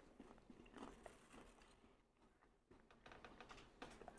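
Faint chewing with a few soft mouth clicks scattered through, near silence in between.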